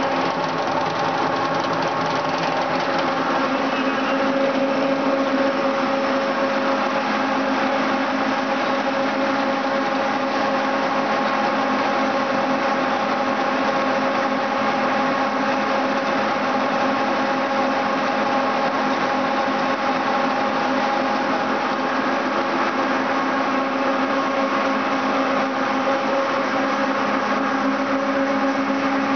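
Insta-Pro extruder and screw-press line running steadily while processing sunflower seed: a constant industrial machine drone with several steady tones held under a noisy wash, even in level throughout.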